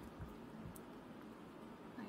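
Soft handling sounds of washi tape rolls being set down on a tabletop: a couple of faint light clicks over quiet room tone.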